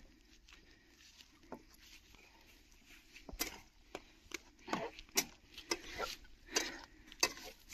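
Dry sticks and twigs snapping and crackling, handled as firewood: a quiet stretch, then irregular sharp cracks about one or two a second from around three seconds in.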